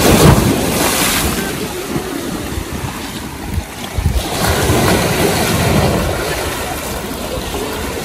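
Small sea waves breaking and washing against a rocky stone edge, with wind buffeting the microphone. The surf surges loudest right at the start and again about four seconds in.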